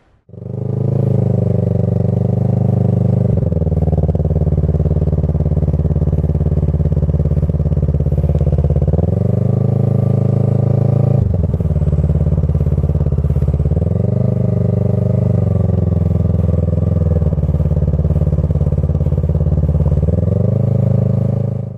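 Kawasaki ER-6f's parallel-twin engine running at low road speed, its revs rising and falling several times as the bike rides off.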